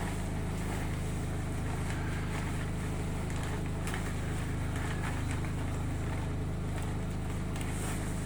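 An engine running steadily with an even, low hum that holds constant.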